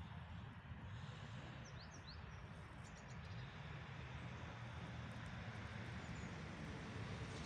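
Outdoor ambience: a steady low rumble, with a few short high bird chirps about two seconds in.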